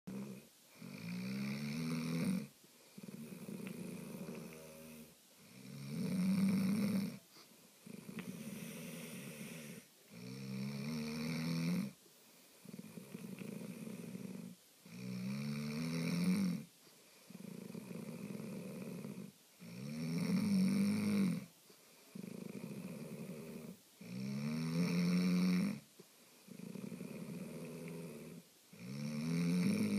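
A man snoring in a steady rhythm, about seven snores. Each loud, pitched snore is followed by a softer breath, and the cycle repeats about every four and a half seconds.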